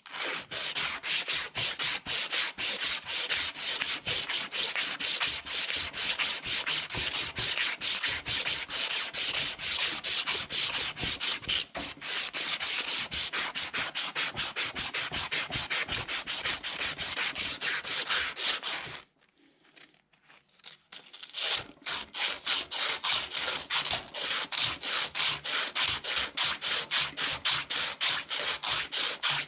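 Sandpaper rubbed back and forth, shoe-shine style, around the rusty metal shaft of a hand-crank ice cream maker, taking off rust in quick, even scraping strokes, several a second. The strokes stop for about two seconds about two-thirds of the way through, then start again.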